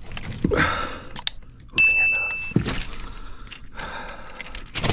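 A big largemouth bass thrashing in the boat while being unhooked from a deep-diving crankbait: scattered thuds and knocks, with treble hooks and metal clinking. The loudest knock comes near the end, and a short steady beep sounds about two seconds in.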